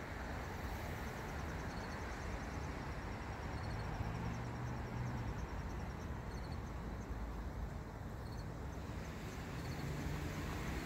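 Outdoor background noise: a steady low rumble with faint, evenly repeated high-pitched chirps recurring throughout.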